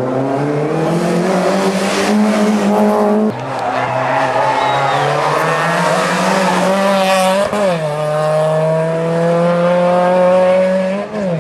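Rally car engines revving hard under acceleration through the gears. The pitch climbs steadily, then drops sharply at each upshift, three times.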